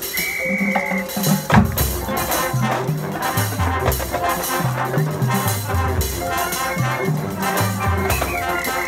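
High school marching band playing: a high held tone in the first second, a loud percussion hit about a second and a half in, then the full band with a low bass line stepping from note to note under brass and percussion.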